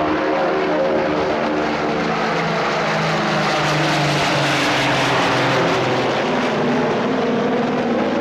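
An Avro Shackleton flying overhead, its four Rolls-Royce Griffon V12 piston engines and six-bladed contra-rotating propellers making a loud, steady drone of several overlapping tones. The pitches shift slightly as it passes.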